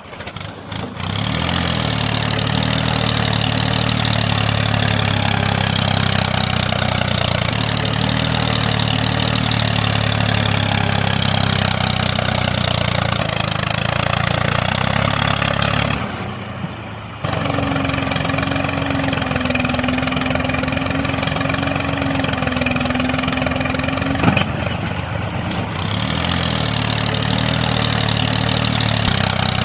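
A miniature tractor's small motor running steadily. About sixteen seconds in it drops out briefly, then resumes with a wavering higher hum for several seconds.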